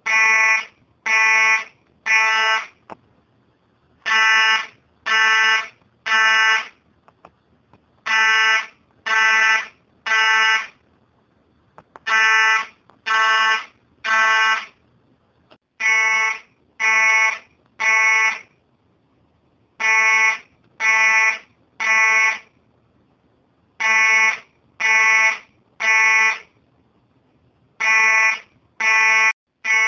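Fire alarm sounding a harsh, buzzy beep three times, about a second apart. After a short pause the group of three repeats every four seconds, the temporal-three pattern that signals evacuation.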